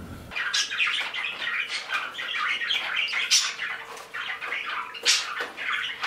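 Pet budgerigars chattering and warbling continuously, with a few sharper chirps standing out about half a second in, around the middle and near the end.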